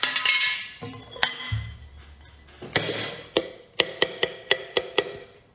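Background music cue made of sharp clicks and knocks that grow quicker, reaching about four a second before stopping near the end.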